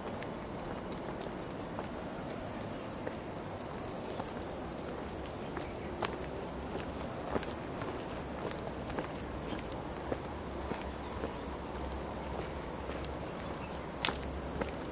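Steady, high-pitched drone of insects in dense trailside scrub, swelling louder about two seconds in and easing a little near the end, with light footsteps on the dirt path and a sharp click about a second before the end.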